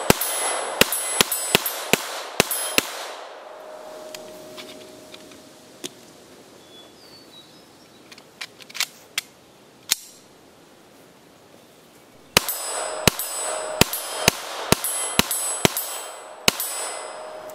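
Norinco TT Olympia semi-automatic .22LR pistol firing a string of about seven shots, one every half second or so. A few quieter clicks follow as the pistol is handled. About twelve seconds in, a second string of about ten shots begins.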